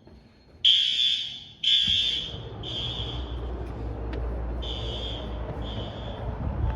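Fire alarm horns sounding the temporal-three evacuation pattern: three blasts about a second apart, a pause, then two more. A low steady rumble comes in about two seconds in.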